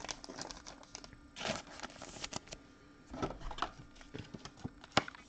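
Faint rustling and light clicks of trading cards being handled, with a sharper click about five seconds in.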